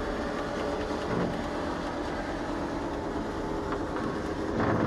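Electric drive of an under-vehicle wheelchair lift running steadily as it powers the platform back into its stowage compartment, getting louder near the end as the platform nears the fully stowed position.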